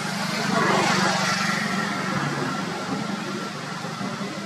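Steady low engine hum of a passing motor vehicle, with a whoosh that swells and fades about a second in.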